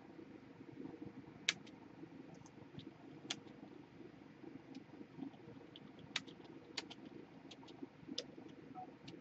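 Faint, irregular clicks of a computer keyboard, about ten sharp keystroke-like clicks spread over several seconds, over a low steady hum.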